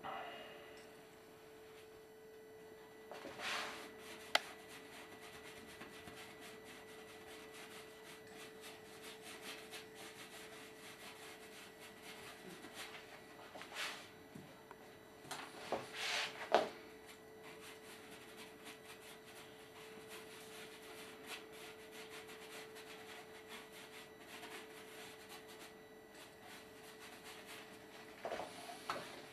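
Paintbrush rubbing and dabbing on canvas in short scratchy strokes, with a few louder scrapes among them, over a steady faint hum.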